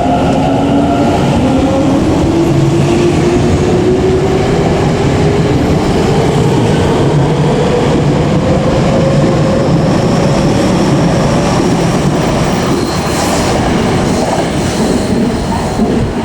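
Tokyo Metro 10000 series electric train pulling away, its traction motors whining in a slowly rising pitch as it accelerates, over the rumble and clatter of wheels on rail.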